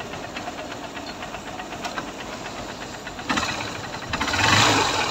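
Honda CB Trigger's single-cylinder motorcycle engine running at idle with a steady fast beat, its timing chain just replaced to cure an engine noise, growing louder in the last second.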